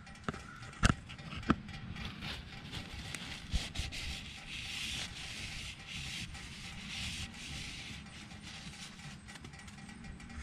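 Two sharp clicks, then several seconds of uneven rubbing and scraping: the oil-tank dipstick of a 1998 Harley-Davidson Electra Glide being pulled out and wiped to check the oil level.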